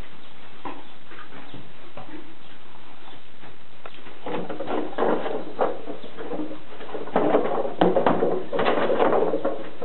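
A horse nosing and mouthing a hanging plastic container treat toy: the plastic crinkles and knocks in a quick jumble of clatters that begins about four seconds in and grows louder near the end.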